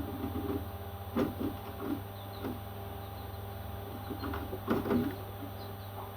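Baby parrots giving short calls in two clusters, one a little over a second in and one about four and a half seconds in, with a few faint high chirps between, over a steady hum.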